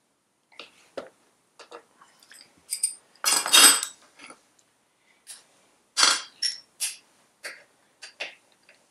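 Hand tools and small metal parts clinking and clattering as the oil pump cover is unbolted and pulled off a Citroën 2CV air-cooled flat-twin engine. Scattered sharp clicks, with a longer metallic clatter about three and a half seconds in and a quick run of clicks around six to seven seconds.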